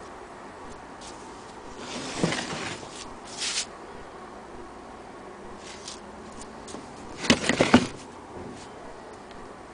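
Handling noise: rubbing and scraping about two seconds in, a short scrape a little later, then a quick rattle of clicks and knocks just past seven seconds, the loudest part.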